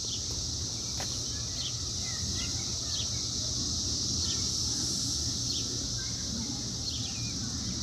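Cicadas droning in a steady, high-pitched chorus, with short bird chirps about every second and a half.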